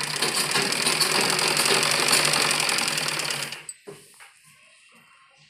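Gulzar sewing machine stitching through fabric at a steady fast pace, then stopping abruptly about three and a half seconds in, with a light knock just after.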